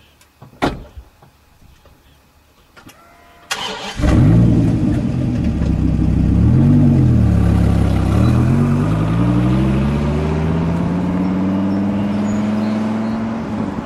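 Dodge Viper V10 starting: after a sharp click, it catches about four seconds in, blips once, then pulls away with its pitch rising steadily.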